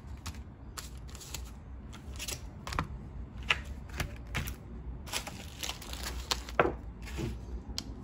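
Sealed medical supply packets in plastic and foil wrappers being set down and arranged by hand on a mat, with irregular rustles and taps.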